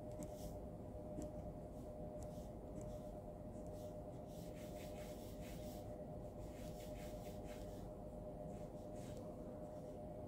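Ballpoint pen scratching across paper in short drawing strokes, busiest in the middle, over a faint steady hum.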